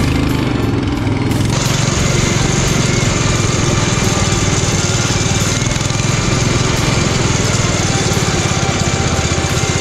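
Riding-mower engine on an offroad mud mower running steadily under load, a rapid even firing throughout, with extra high hiss coming in about a second and a half in.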